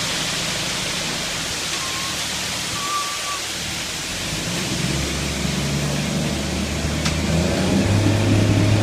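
Steady rushing noise with an engine running underneath; the engine comes in about halfway and its pitch steps up near the end.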